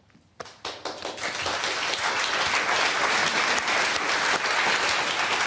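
Audience applause: a few scattered claps about half a second in, building within about two seconds into steady applause from the whole room.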